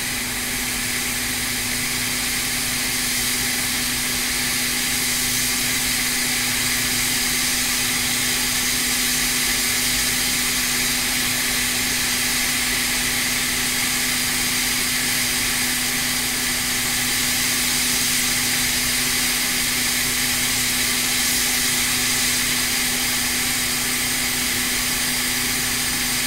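Hot air rework station blowing a steady stream of hot air onto a surface-mount polymer tantalum capacitor, melting its solder to take the failed part off a logic board: a loud, even hiss of air over a constant hum.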